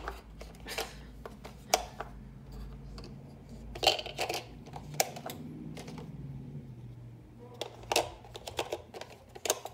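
Loose plastic gouache pans clicking and tapping against a metal tin palette as they are picked up and set into their slots, in irregular sharp clicks, with a cluster about four seconds in and another near the end.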